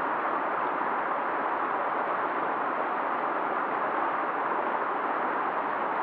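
Steady rushing of a swollen, fast-flowing river, an even noise that holds level with no breaks.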